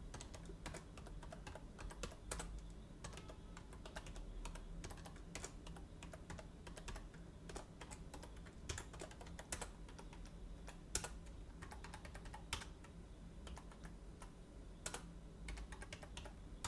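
Computer keyboard typing: irregular runs of keystrokes with short pauses, faint, over a low steady hum.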